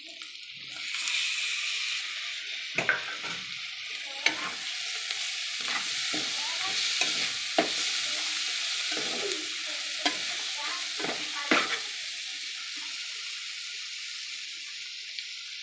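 Sliced tomatoes sizzling as they go into hot oil in a steel pan of chopped flat beans. The sizzle swells about a second in, a steel spoon stirring clinks against the pan several times, and the sizzle eases near the end.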